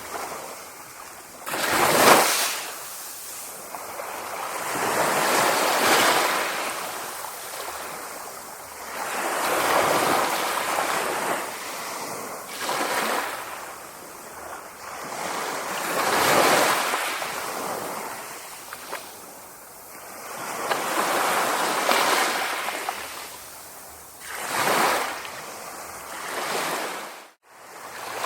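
Sea waves breaking and washing in, the surf swelling and fading every two to four seconds. The sound cuts out for a moment near the end.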